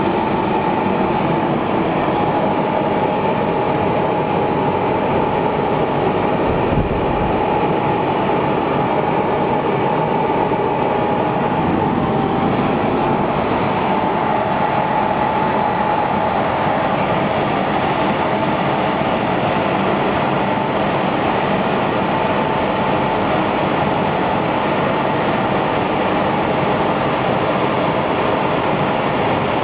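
Brushless car wash machine running: a loud, steady rushing noise with a steady whine on top.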